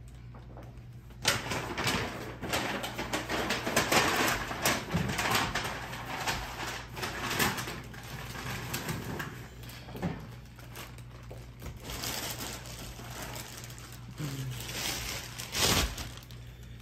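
Plastic seafood-boil bag crinkling and rustling as a hand and plastic fork dig through it, a run of irregular crackles starting about a second in.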